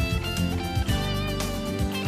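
Instrumental background music led by guitar.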